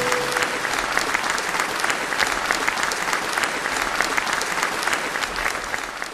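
Audience applauding at the end of a song, a dense patter of many hands clapping. The last held note of the music dies out in the first half-second, and the applause fades away near the end.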